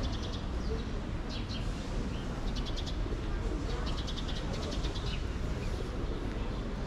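Small songbirds chirping in short, rapid trills, about eight bursts, over a steady low rumble of street ambience.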